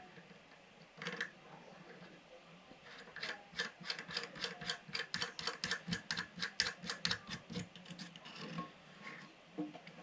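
Plastic locknut of a toilet fill valve being spun up its threads by hand under the tank: a rapid run of light plastic clicks, about five a second, starting about three seconds in and lasting several seconds, with a single click about a second in.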